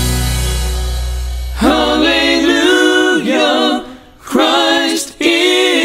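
The band's last chord rings and fades, then unaccompanied voices sing in close harmony, choir-like. They come in about a second and a half in and sing in phrases with two short breaks.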